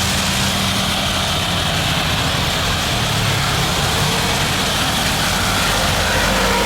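Jet airliner engines running steadily: an even, loud rush with a thin high whine over it.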